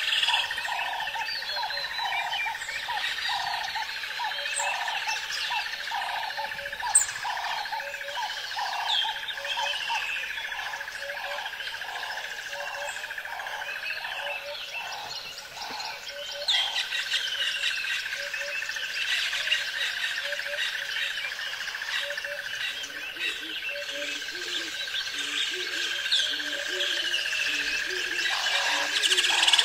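Forest ambience of many birds calling with short falling chirps, over a steady high drone and a pulsed call repeating about every three quarters of a second. A lower series of short calls joins near the end.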